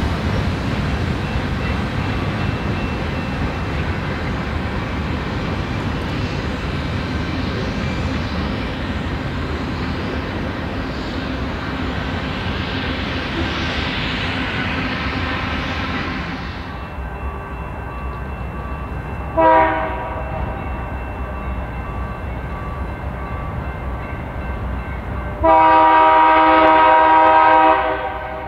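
A passing train's steady rumble and rail noise, with a swelling hiss of wheels that fades out. Then a diesel locomotive's multi-note air horn sounds a short blast and, near the end, a long, loud blast of about two and a half seconds.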